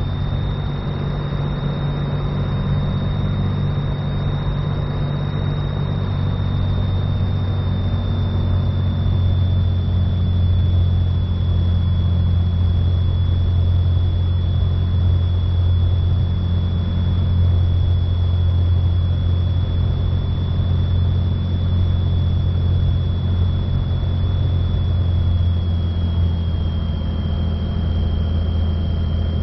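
Cessna 182 Skylane's piston engine and propeller running at a steady low drone on the landing approach, with a thin high whine throughout that drops slightly in pitch twice.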